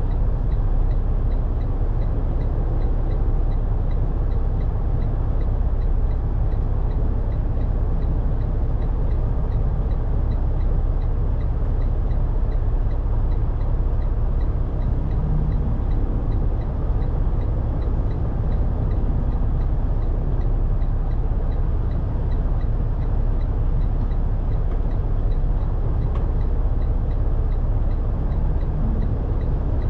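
Semi-truck's diesel engine and drivetrain rumbling steadily, heard from inside the cab as the truck rolls slowly, with a faint regular ticking over it.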